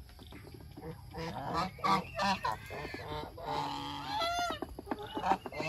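Domestic geese honking while they feed: a few short calls early, then a falling call about four seconds in, followed by a run of quick sharp clicks near the end.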